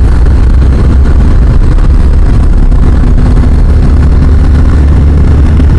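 BMW G310GS single-cylinder motorcycle riding on the road: a steady, loud engine and road rumble mixed with wind noise on the mic, with a faint steady engine tone coming up about two and a half seconds in.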